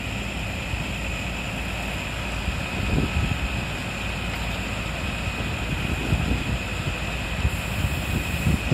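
Fire engine running steadily, with a steady high whine over the engine noise and gusts of wind buffeting the microphone.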